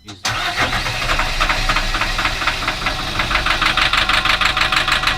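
Turbo diesel engine of an amphibious swamp vehicle cutting in sharply and running with a rapid, even knock, just back to life after water was pumped out of its hydrolocked cylinders.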